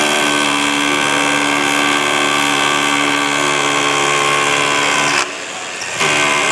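DEWALT DCH213 20V MAX cordless SDS rotary hammer drilling into a concrete wall. It runs steadily for about five seconds, stops briefly, then runs again for about a second near the end.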